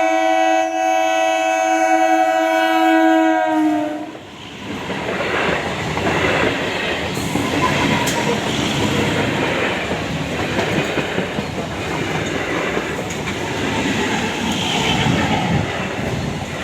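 Indian Railways train horn sounding one long steady note that dips slightly in pitch as it cuts off about four seconds in, followed by the train rushing past with a loud, steady rumble and wheel clatter over the rails.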